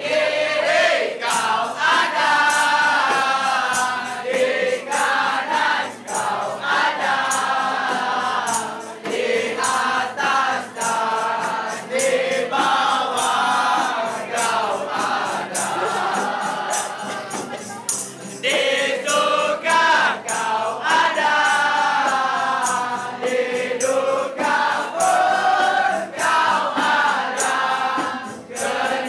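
A crowd of young people singing or chanting together in unison, with rhythmic hand clapping.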